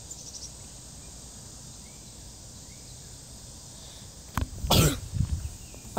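A person's sharp cough about four and a half seconds in, a short loud burst with a weaker one just after, over a faint outdoor background.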